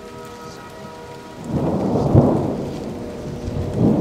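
Steady rain with a roll of thunder that builds about a second and a half in, peaks, and slowly fades, and another rumble of thunder near the end.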